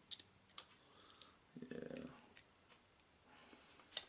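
Steel needle-nose pliers clicking and scraping on a small 3D-printed plastic part as they grip and pry out leftover print support material: a string of small sharp clicks, the loudest near the end. A short low sound falls a little before the middle.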